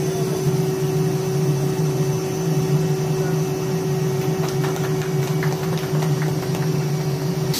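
Steady mechanical hum with a constant tone, unbroken throughout, and a few faint clicks about five seconds in.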